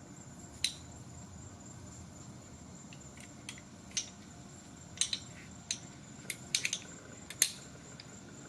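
Glock 19 pistol parts being fitted back together: a series of short sharp clicks and clacks, sparse at first and bunched together in the second half, the loudest about three quarters of the way through.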